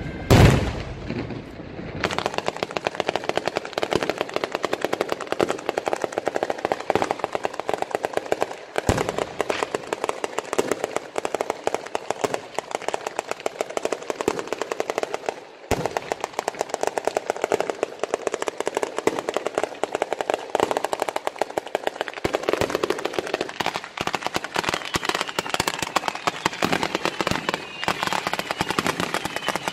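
A Sanseverese-style ground firework battery going off: a long, unbroken string of firecracker bangs, many a second, after one loud shell burst at the start.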